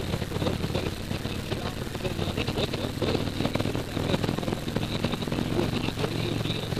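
Motorcycle engine running steadily at cruising speed, heard from the passenger seat, with wind buffeting the helmet-mounted microphone.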